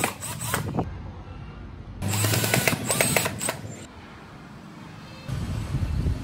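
Cordless drill-driver working on a carved wooden model truck, in short bursts of whirring and clicking, mixed with the clicks and knocks of small wooden parts being fitted by hand.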